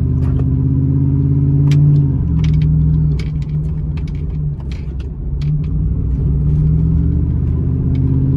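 Pickup truck's loud exhaust droning from inside the cab while driving, a steady engine note that eases off about halfway through and then builds again.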